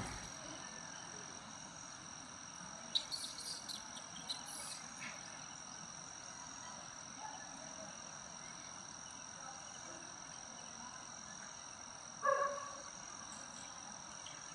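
Steady high-pitched insect drone, with a few rustles and clicks about three to five seconds in and one short animal cry about twelve seconds in.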